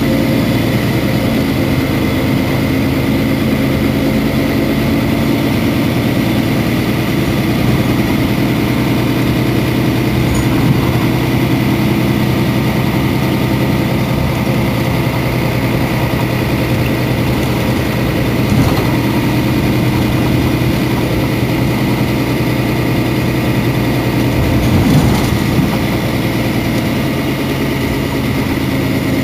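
Mercedes-Benz Citaro city bus's diesel engine idling steadily, with a steady high whine alongside it.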